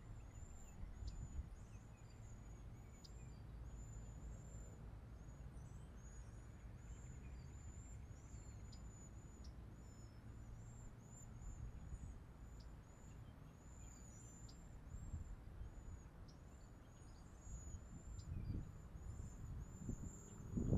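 Outdoor ambience: a steady run of short, high-pitched chirps, several a second, over a low rumble.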